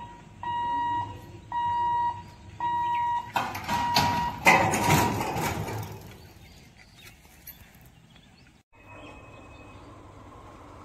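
Railway level-crossing warning buzzer beeping about once a second while the boom barrier lowers, then a loud rattling clatter lasting about two seconds as the barrier comes down. After a sudden cut, only faint steady background noise.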